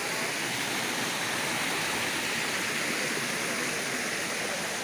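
Rushing stream water tumbling over rocks, a steady hiss.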